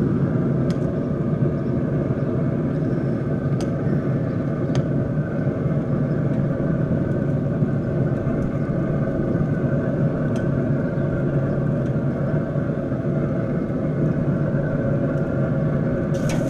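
Mojack Pitmaster Q3 pellet grill's blower fan running with a steady hum, with a few faint light clicks.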